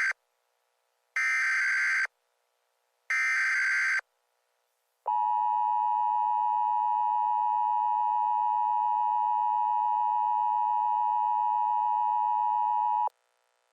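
Emergency Alert System tones. The end of one SAME header data burst is followed by two more full bursts, each about a second long with short gaps between. Then comes the EAS attention signal, the steady two-tone 853/960 Hz alarm, held for about eight seconds before it cuts off sharply.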